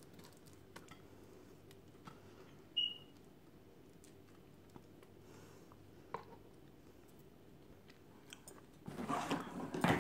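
Soft scraping and crunching of a sticky sesame-seed mixture pushed from a pan into a plastic-wrapped glass dish with a silicone spatula, with a few faint knocks and a short squeak about three seconds in. Near the end comes louder crunchy scraping as the mixture is pressed down.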